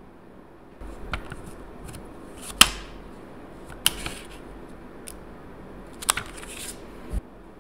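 Sharp clicks and crinkling of a clear plastic nail-sticker sheet being handled and picked at with metal tweezers, over a low handling rumble. There are five or so clicks, the loudest about two and a half seconds in.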